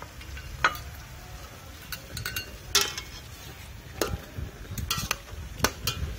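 Metal spatula and ladle stirring in a stainless steel pot of fish and greens, with a handful of sharp metallic clinks and scrapes against the pot over a low steady background rumble.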